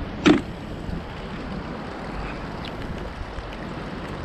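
Steady rush of wind and rain on the microphone, with one sharp knock about a third of a second in.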